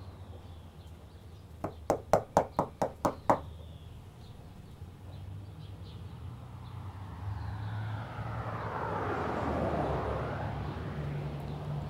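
Knocking on a wooden front door: a quick run of about eight raps a couple of seconds in. Later a rushing noise swells and fades over a few seconds, over a steady low hum.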